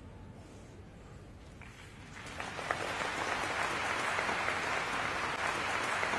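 Sumo hall audience clapping: low hall noise at first, then applause that swells about two seconds in and holds steady.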